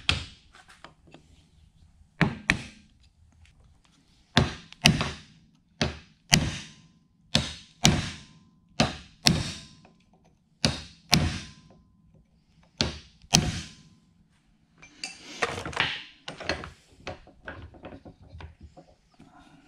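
Hammer blows on a Jeep Wrangler front driveshaft's universal joint, a series of sharp strikes that often come in pairs about half a second apart, driving the old joint's bearing caps out of the yoke. Near the end come a few seconds of scraping and lighter taps.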